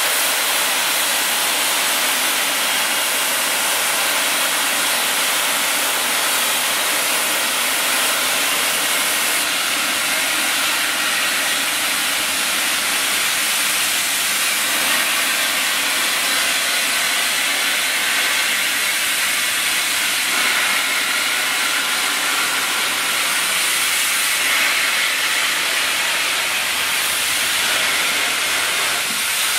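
Steam locomotive 46100 Royal Scot, an LMS Royal Scot class 4-6-0, letting off steam in a loud, steady hiss, its safety valves blowing off above the firebox.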